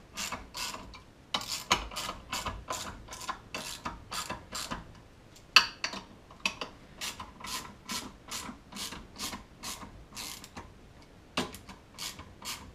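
Hand ratchet clicking in a steady run of about three clicks a second, with short pauses, as the cover bolts of a snowmobile primary clutch are run down a few even turns at a time.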